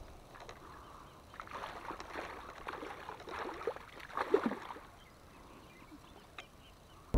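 Faint, uneven splashing of water at the surface in a few short bursts, with a single sharp tick near the end.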